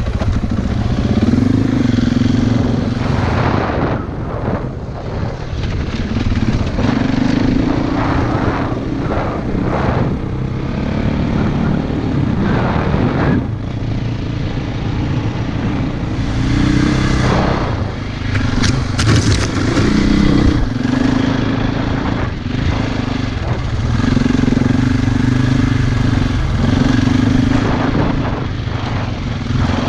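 Single-cylinder four-stroke dirt bike running on a trail ride, its engine note rising and falling with the throttle, over a steady rush of wind and occasional knocks.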